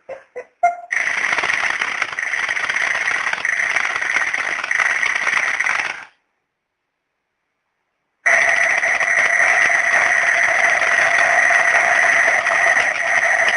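Bomb-shaped novelty alarm clock's alarm ringing loudly and steadily. It cuts off about six seconds in and, after two seconds of silence, starts ringing again.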